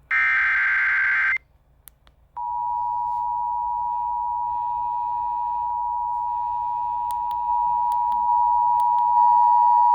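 Emergency Alert System audio. First comes a short burst of SAME header data tones, about a second and a half long and the last of its three repeats. After about a second's gap the steady two-tone EAS attention signal (853 and 960 Hz) starts and holds, getting louder in steps near the end.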